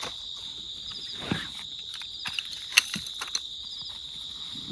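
Crickets and other insects trilling steadily in a continuous high chorus. Over it come a few sharp clicks and knocks, the loudest nearly three seconds in.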